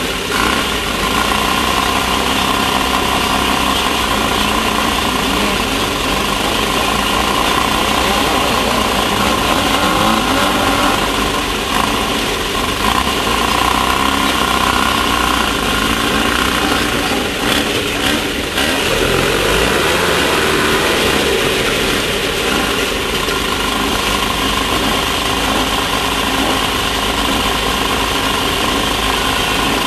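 Class 1600 off-road race car's air-cooled VW 1600 engine running hard at race pace, its pitch rising and falling with the throttle, over a constant rattle and rush of wind and terrain noise.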